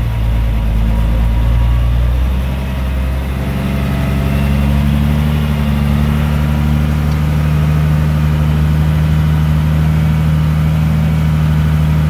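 The M35A2 deuce-and-a-half's multifuel turbo-diesel inline-six runs steadily, heard from inside the cab. Its pitch shifts up slightly about two to three seconds in, then holds even.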